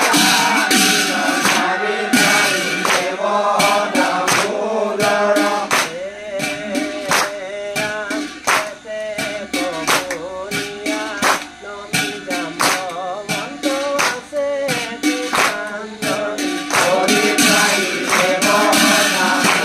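Assamese nam-prasanga: devotional group singing with percussion striking a steady beat. The percussion is sparser in the middle and grows fuller again near the end.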